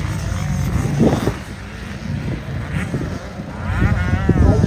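Motocross dirt bike engines running on the track, with a rev rising in pitch near the end.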